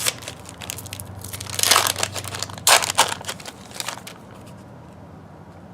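A trading card pack wrapper being torn open and crinkled by hand, with two louder rips near the middle.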